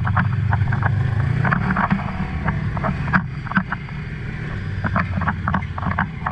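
Honda side-by-side UTV engine running at low speed, heard from inside the cab as the machine creeps over gravel and rock, with frequent short clicks and clatters from stones and the body.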